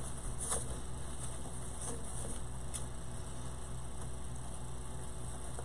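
Steady low electrical mains hum, with a few faint clicks of handling on top.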